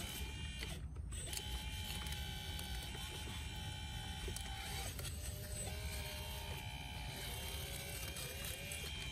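Hydraulic system of a radio-controlled Volvo EC160 excavator (Double E model converted to hydraulics by Norstates) running under digging work: a steady pump whine whose pitch steps and bends several times as the boom, arm and bucket are worked.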